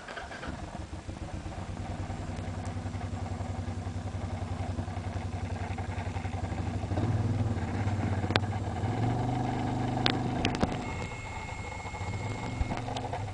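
Motorcycle engine running steadily, with a rumble that grows louder about halfway through. A few sharp clicks come near the end.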